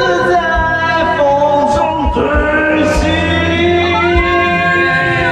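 A man singing a Mandarin pop song karaoke-style into a microphone over a backing track, holding long notes.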